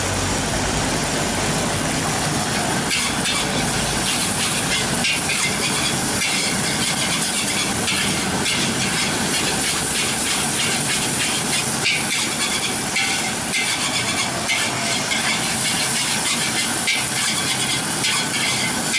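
Fried rice with squid sizzling in a large wok over high heat, while a metal spatula scrapes and clacks against the wok again and again as it is stir-fried.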